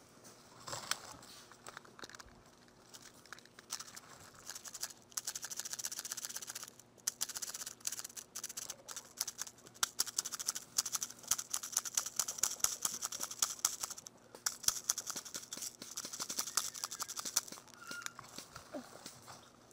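Dry fallen leaves rustling and crunching close to the microphone as someone shifts about on the forest floor, in long irregular stretches of crackling with a couple of quieter gaps.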